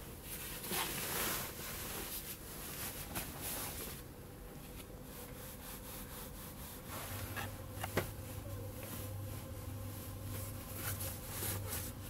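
Hand rubbing and pressing on hotel bedding: repeated rustling swishes of a cotton duvet cover, sheet and pillowcase, with a sharp tap about eight seconds in.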